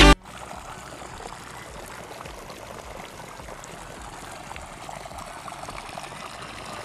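Irrigation water from a borewell flowing steadily along field furrows and pouring out of a plastic pipe outlet. Music cuts off at the very start.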